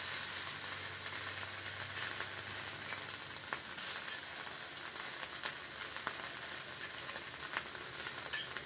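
Hidol, small fermented dried fish, sizzling as it fries in a little oil in a hot pan. A few faint ticks are heard over the steady sizzle.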